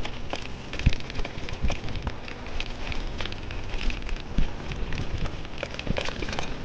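Mountain bike rolling over loose, rock-strewn ground: tyres crunching on stones and gravel in a dense, irregular crackle, with scattered low thumps as the bike jolts over bumps.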